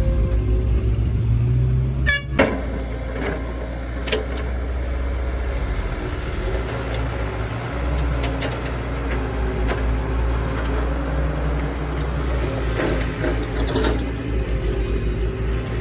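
Heavy diesel engine of a Caterpillar E120B excavator running steadily, with a sharp metallic clank about two seconds in and lighter knocks later on.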